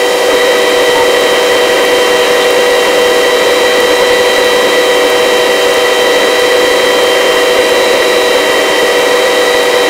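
Helicopter in a low hover: a steady whine of several high tones from the turbine and gearbox over an even hiss of rotor noise, unchanging throughout.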